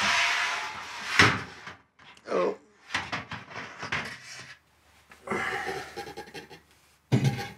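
Stainless steel malt pipe of a Grainfather G30 scraping and knocking against the inside of the boiler as it is worked loose and lifted out: a rushing scrape at the start, a sharp clunk about a second in, then scattered lighter knocks.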